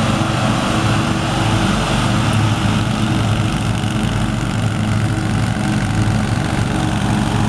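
Small lawn-mower engines running together at a steady pace: a riding lawn tractor and the engine-powered mower decks it tows, cutting grass.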